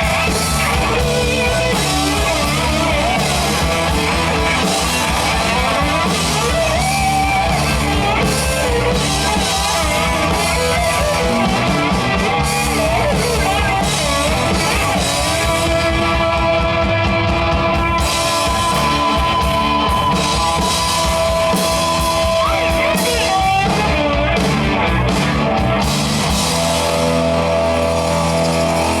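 Rock band playing: electric guitar over bass and drum kit, with long held guitar notes partway through.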